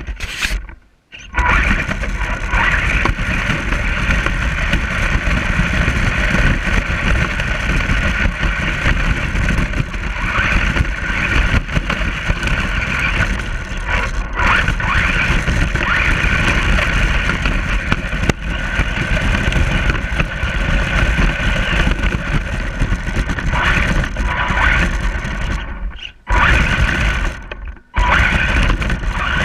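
Radio-controlled truck's motor running, its pitch swelling and easing as it drives, over a steady low rumble. The sound drops out briefly about a second in and twice near the end.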